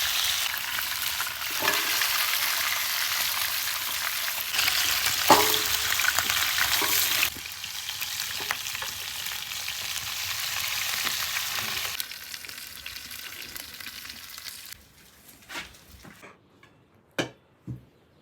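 Food sizzling and frying in hot oil, with occasional stirring knocks. The sizzle drops in level twice, dies away about fifteen seconds in, and a few light knocks follow.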